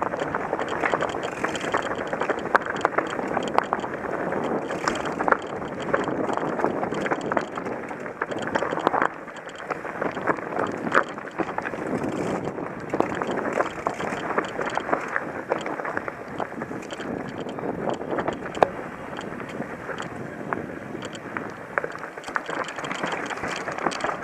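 Mountain bike rolling fast down a rocky dirt trail: steady tyre noise on gravel and dirt, with frequent short clicks and knocks as the bike clatters over rocks and roots.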